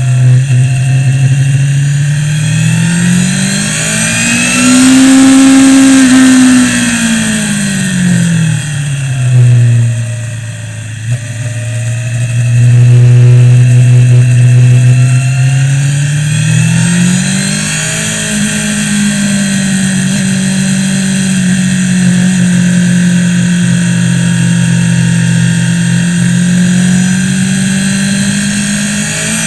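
Suzuki GSX-R sportbike's inline-four engine at track speed. Its pitch rises about five seconds in, drops as the throttle closes around ten seconds, then climbs again and holds steady through the last ten seconds.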